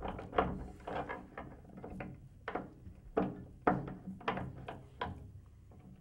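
Bass drum spur being loosened and swung forward on its mount: a run of irregular metal clicks and knocks from the wing nut and spur leg, some of them ringing briefly.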